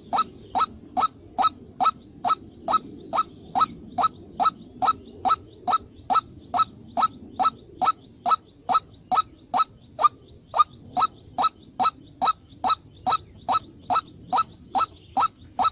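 A bird call: short, sharp notes repeated at a steady, even pace, a little over two a second.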